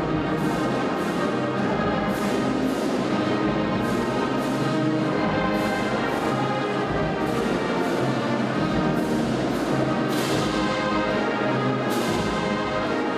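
The school alma mater played by a band with brass and percussion: sustained brass chords with frequent cymbal strokes.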